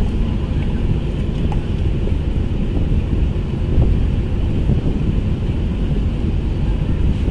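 Wind buffeting the microphone in a steady low rumble, over the steady running of the berthed ro-ro ferry's engines, which keep its propellers turning even while it lies at the pier.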